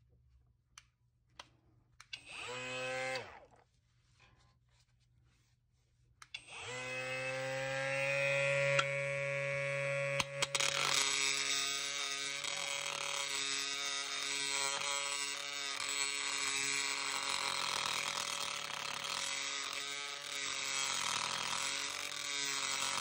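Cordless Kobalt power tool spinning a grinding bit. It gives a short trial whir, then runs steadily while the bit cuts into the metal around the rear axle's spring perch opening, a harsh grinding noise coming in over the motor hum a few seconds after it starts.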